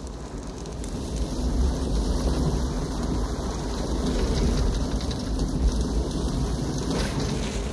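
Sound effect of a mine cart rolling fast along its track: a steady, dense low rumble.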